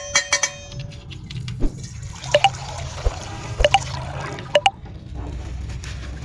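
Coloured water draining and dripping from a punctured plastic bag, with a steady hiss and three droplet-like plinks about a second apart. A few sharp clicks come at the start.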